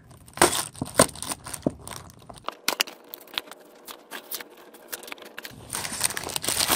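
Small thin cardboard box being opened at its perforated punch tab: cardboard crackling and tearing in a string of sharp clicks, growing to a denser, louder rustle near the end as the flap comes open.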